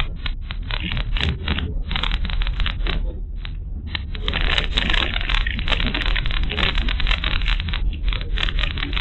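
Car driving, heard through a dashcam microphone inside the cabin: a steady low road rumble with dense crackling and rattling that grows busier about four seconds in.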